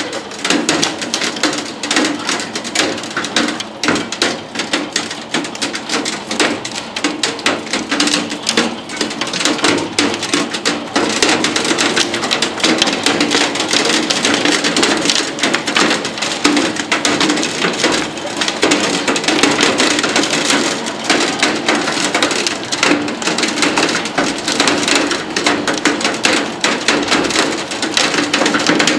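Heavy rain and hail pelting a window, a dense, continuous clatter of hard little impacts on the glass.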